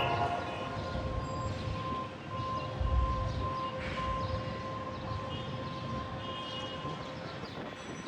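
Railway train running, a low rumble with a steady high whine over it and a heavier low thump about three seconds in.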